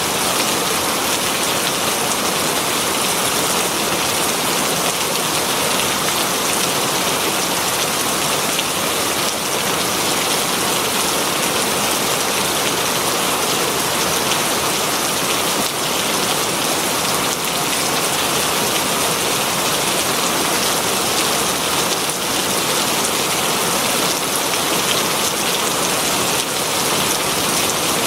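Very heavy rain falling steadily on green leaves, an even, unbroken hiss of water.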